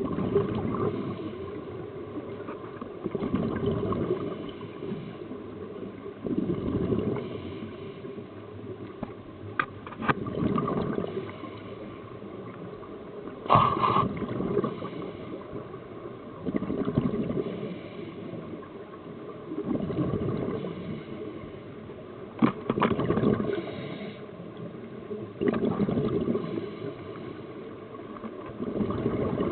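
Scuba diver breathing through a regulator underwater: a burst of gurgling exhaust bubbles about every three seconds, about ten in all, with quieter inhalations between and a few sharp clicks.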